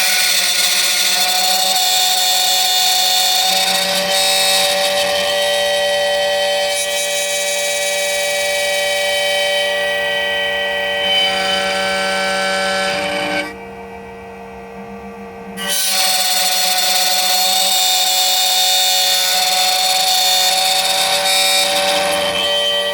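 Electronic key cutting machine milling a key blank: its cutter spindle runs with a steady high whine and cutting hiss, stops for about two seconds about two-thirds of the way through while a low hum carries on, then starts again.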